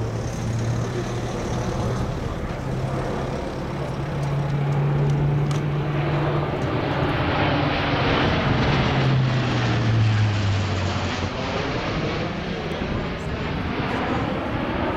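A Lockheed Martin C-130J Hercules's four Rolls-Royce AE 2100 turboprops, with six-bladed propellers, humming as the aircraft flies low overhead. The sound grows loudest about eight to ten seconds in, as the propeller hum drops in pitch while the aircraft passes, then eases as it flies away.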